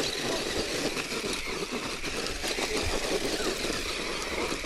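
Radio-controlled off-road buggy's motor running steadily as it climbs a gravel slope, with a few short rises and falls in pitch.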